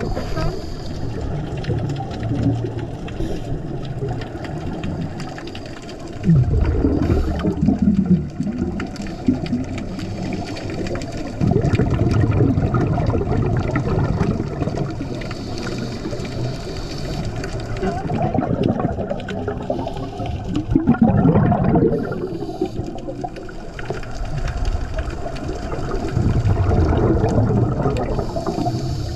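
Scuba divers' exhaled bubbles gurgling and rushing underwater, surging in louder bursts every few seconds.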